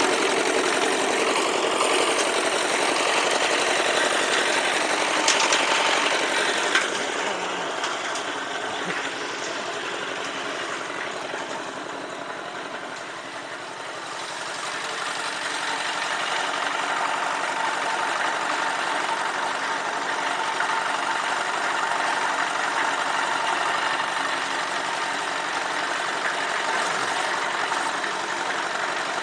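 Small single-cylinder diesel engine of a concrete mixer running steadily, driving the turning drum as it is loaded. It drops somewhat quieter about ten seconds in, then comes back up.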